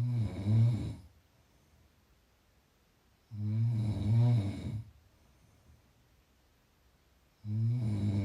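Snoring in a steady rhythm: three snores about four seconds apart, each a low buzz of a little over a second with two pulses in it.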